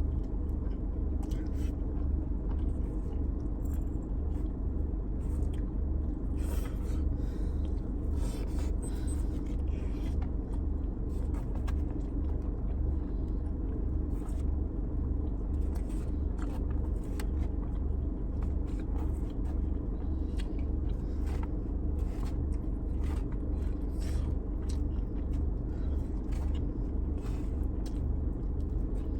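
Steady low rumble of an idling car engine heard inside the cabin, with scattered clicks and scrapes of someone eating from a takeout plate.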